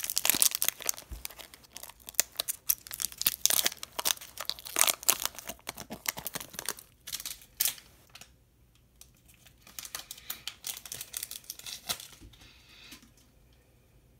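Foil wrapper of a Pokémon trading card booster pack being crinkled and torn open: dense crackling for the first seven seconds or so, then sparser rustles that die away near the end.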